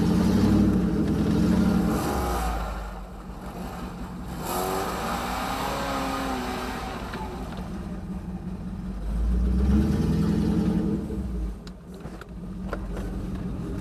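Off-road 4x4's engine revving hard in mud, in two loud spells: one at the start and another about ten seconds in, running lower between them.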